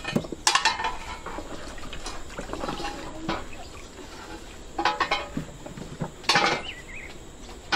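Wet peeled manioc roots lifted from a basin of water and dropped into a wooden trough: water splashing and dripping, with a few sharp knocks of roots on wood about half a second in, near five seconds and a little after six.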